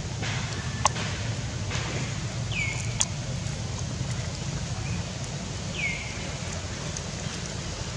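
Outdoor ambience with a steady low wind rumble on the microphone. Two sharp clicks sound about a second and three seconds in, and two short chirps slide downward and level off, about three seconds apart.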